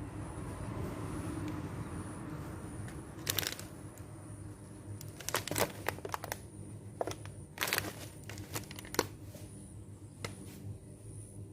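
Plastic snack packet of kerupuk crackers crinkling as it is handled, in scattered crackly bursts over a steady low hum.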